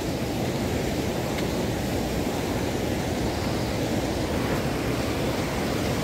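Steady rushing of a waterfall: an even noise with no breaks or distinct events.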